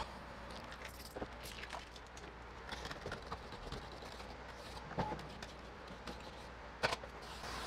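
Faint hand-work sounds of window tinting on a truck's door glass: a card or squeegee wiping wet glass, with light clicks and soft scrapes over a low steady hum. There is a short squeak about five seconds in and a sharper click near the end.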